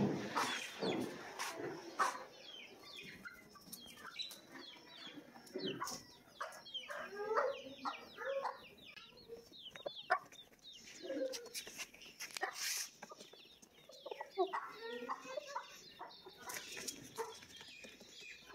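Hens clucking low now and then while chicks peep in many short, high, falling calls, with a few sharp clicks.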